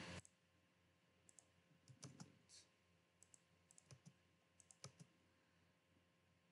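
Faint, scattered clicks of a computer mouse and keyboard, about fifteen between roughly one and five seconds in, some in quick runs, with near silence between them.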